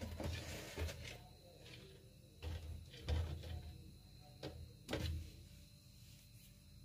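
A few faint scattered knocks and bumps, the loudest about three seconds in, over a quiet kitchen background.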